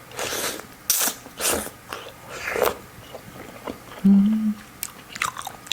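Close-miked mouth sounds of a person eating oysters: chewing in several short bursts, then a brief hummed "mm" a little after four seconds in.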